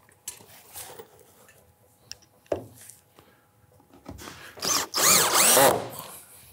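Cordless drill run briefly into a steel Z closure on a standing seam metal roof panel, its motor whine rising and then falling about five seconds in, after a few light clicks and a knock of handling.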